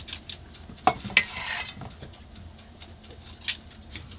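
Metal spoon tapping and scraping against a muffin tin as batter is spooned into paper cups: a few sharp clicks, the loudest about a second in, with a short scrape just after it.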